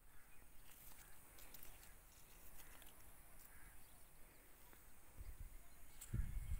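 Faint outdoor ambience with scattered faint high ticks and chirps. Low rumbles hit the microphone about five seconds in and again near the end.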